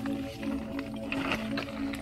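Background music of held synth-like notes that step between pitches, with a couple of short soft noises on top.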